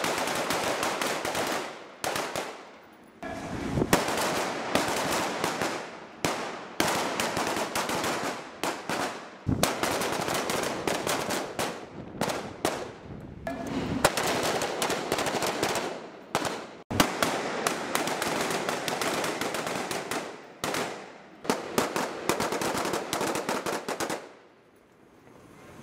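A line of rifles firing many rapid, overlapping shots, the cracks following one another almost without a break, with short lulls between strings. The shooting dies away near the end.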